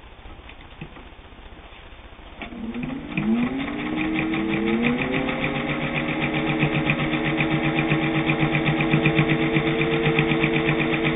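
A Singer 201's built-in gear-driven motor starts after a few faint clicks, and its whir rises in pitch over about two seconds. It then runs steadily, with the needle stitching at a fast, even tick through flannel.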